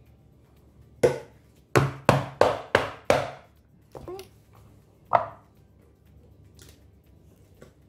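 Silicone-lined wooden soap loaf mould knocked down on the counter: six quick knocks, then two more spaced out. This settles the thick hot-process soap and drives out air pockets.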